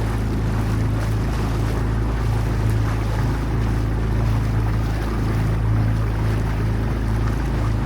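Small fishing boat's engine running steadily at constant speed under way, with wind and water rushing past.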